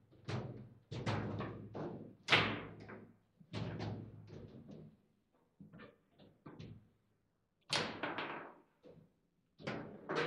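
Table football in play: irregular sharp knocks and clacks as the ball is struck by the plastic players and rebounds off the table walls, with the rods banging. The loudest knock comes a little over two seconds in, and there is a quieter spell of lighter taps midway.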